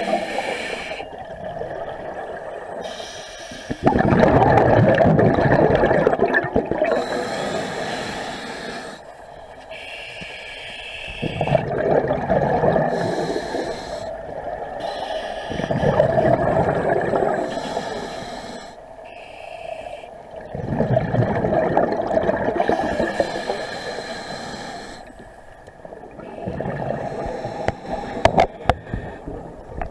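A scuba diver breathing through a regulator underwater: loud bubbling bursts of exhaled air about every four to five seconds, with quieter inhalation stretches between them.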